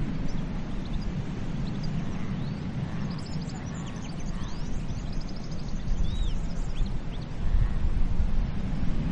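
Ocean waves washing onto a beach, a steady low rush that swells louder near the end. Small birds chirp and trill over it, most busily around the middle.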